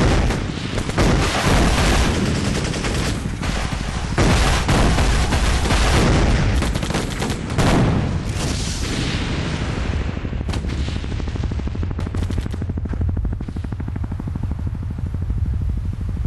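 Heavy battle gunfire: rifles and machine guns firing in dense volleys with booms, thinning out after about nine seconds to scattered shots over the steady low throb of a helicopter's rotor.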